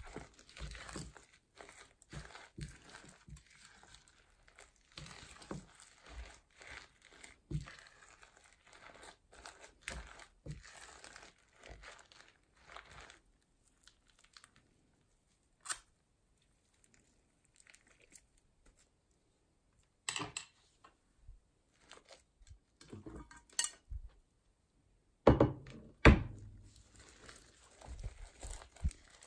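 Hands squishing and kneading crunchy slime studded with small beads, a dense crackling and squelching with tearing as it is pulled apart. It falls almost quiet for several seconds in the middle, then picks up again with a few louder squelches and slaps near the end, the loudest sounds here.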